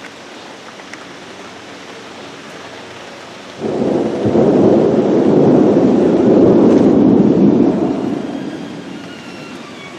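Thunder breaks suddenly about a third of the way in, rumbling loudly for about four seconds before dying away, over steady rain.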